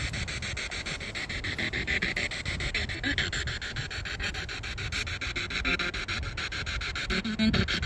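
Spirit box radio scanner sweeping through stations: a steady static hiss chopped several times a second, with a brief louder fragment near the end.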